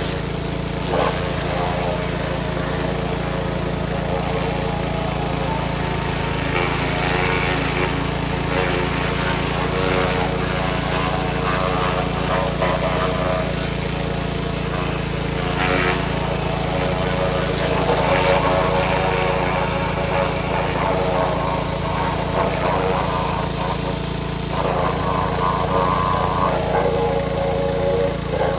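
Power washer running steadily while it sprays down an engine block that has been soaking in oven cleaner. Its tone shifts twice, a little past halfway and again near the end.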